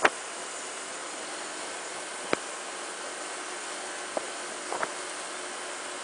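Steady hiss of wind and road noise on a scooter moving at speed. A few short sharp knocks cut through it: one at the very start, one a little past two seconds in, and a quick cluster of three around four to five seconds in.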